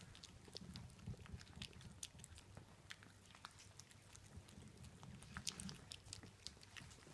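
Two Bichon frise puppies eating dry kibble from a stainless steel bowl: faint, irregular crunching and small clicks as they chew and push the pieces around the bowl.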